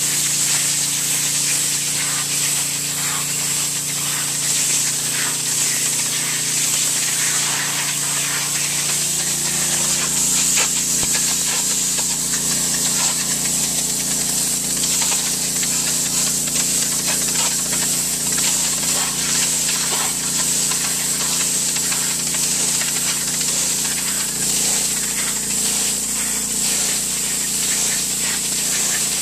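Pressure washer spraying a brick patio: a loud, steady hiss of the high-pressure jet on wet pavers. Under it the pressure washer's engine hums steadily, shifting pitch slightly about nine seconds in.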